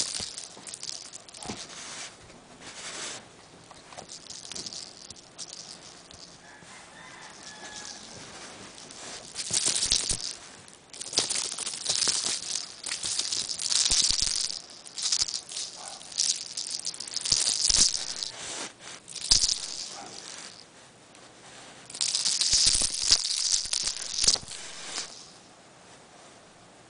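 Dry rustling and scratching in irregular bursts of one to three seconds, with short quieter gaps between them.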